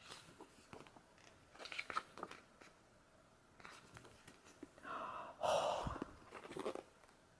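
Glossy photobook pages being turned and handled: paper rustling with small taps and clicks, in two bouts, the louder one a little past halfway.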